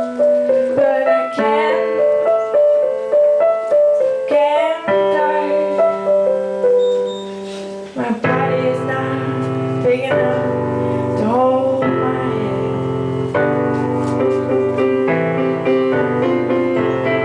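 Piano playing an instrumental passage of a song, a melody of separate held notes. About eight seconds in, the texture turns fuller, with lower notes added.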